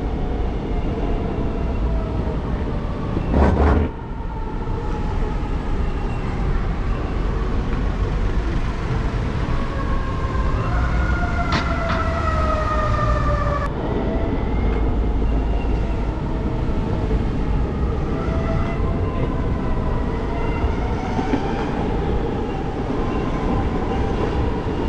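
Electric skateboard riding on city pavement: a steady rumble of wheels and wind, with whines that slide down and back up in pitch as speed changes. There is one loud bump about three and a half seconds in.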